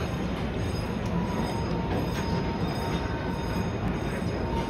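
Narrow-gauge park train, a small steam locomotive pulling open passenger cars, rolling around a curve: a steady rumble of wheels on track with a faint, thin wheel squeal.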